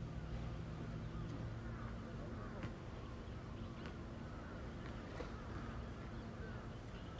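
Waterfront ambience: a low, steady machine hum, part of which drops away about a second and a half in, with many faint bird chirps and a few light clicks.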